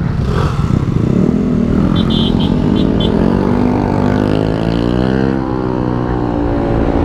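Motorcycle engine running under way, its pitch rising and falling as the speed changes, over a low rumble of wind on the mic. A few short high beeps come about two to three seconds in.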